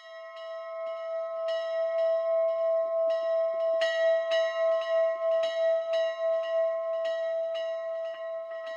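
Small church bell rung quickly, its clapper striking about two to three times a second over a steady ringing tone that swells over the first couple of seconds. It is rung as the call to worship.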